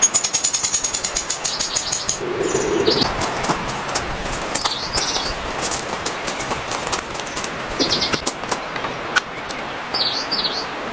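Wild birds giving short, high chirping calls about four times, a few seconds apart, over a steady hiss. A rapid run of clicks fills the first two seconds.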